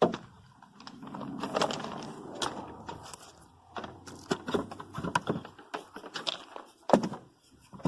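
Handling noises: a sharp click at the start, then scattered clicks, knocks and rattles, with a steady low hum for a few seconds in the first half.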